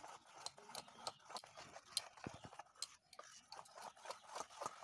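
Wire whisk beating cake batter in a steel bowl: faint, irregular clicks and scrapes, two or three a second, as the wires knock against the bowl.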